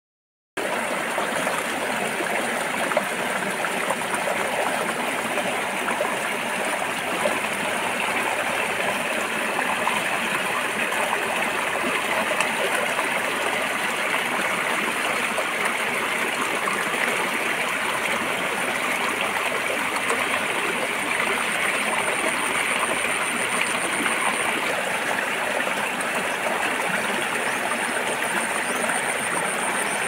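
Shallow stream flowing fast over rocks, a steady, even rush of water that starts about half a second in.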